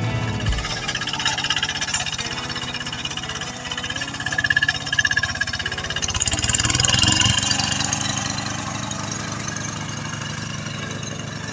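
Single-cylinder diesel engine of a two-wheel hand tractor running steadily as it churns through a flooded rice paddy, growing louder for a few seconds midway.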